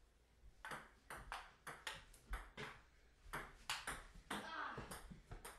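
Table tennis rally: the ping pong ball clicks off paddles and the table over and over in quick, uneven succession, starting about half a second in.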